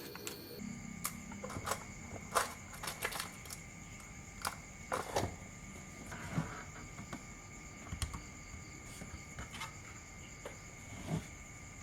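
Light clicks and taps at irregular intervals, as of small parts and tools being handled, over a faint steady high-pitched whine.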